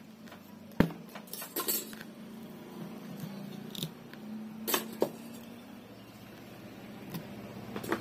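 Scattered metallic clinks and knocks from a ceiling fan stator and a hand tool being handled while its copper winding is cut out, the sharpest knock about a second in. A faint steady hum lies underneath.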